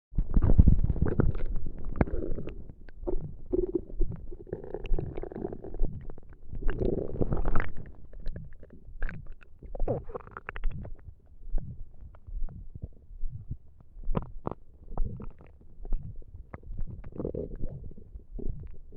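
An empty stomach growling and gurgling. The gurgling is dense and loudest for the first seven or eight seconds, then breaks into short, scattered gurgles and pops.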